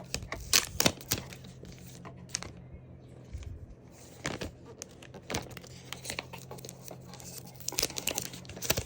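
Packaging being unwrapped by hand: irregular crinkling and rustling with scattered sharp ticks, busiest near the start and the end.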